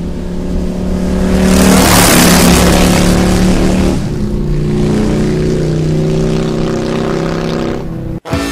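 A vehicle engine revving and running hard, its pitch shifting in steps, with a rushing swell loudest about two seconds in. It cuts off abruptly near the end.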